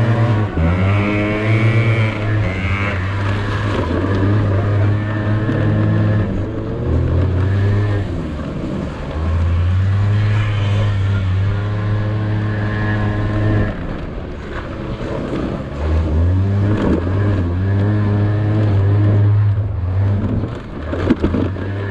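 Small scooter engine under hard throttle while being ridden over rough dirt, its revs climbing and dropping again and again.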